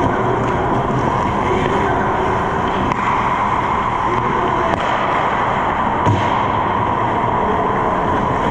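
Steady ice-rink background noise during hockey play: a constant rushing hum with a few faint knocks, the loudest a short thump about six seconds in.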